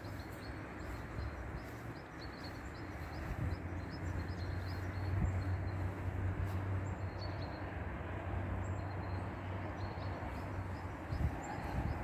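Outdoor ambience: small birds chirping in short repeated calls over a steady rumble of distant traffic, which swells in the middle and eases off again.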